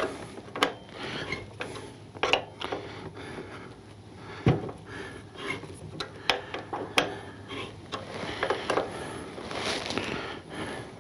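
Hand wrench turning out the lower shock bolt of a Harley-Davidson Dyna: irregular metal clicks and clinks as the tool works on the bolt and nut.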